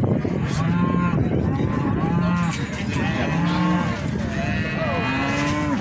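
Several cattle mooing, one call after another with some overlapping, about every second.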